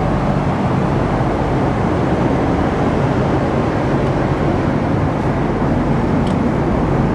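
Steady roar of a jet airliner's cabin in flight, the even rush of engine and airflow noise heard from a passenger seat.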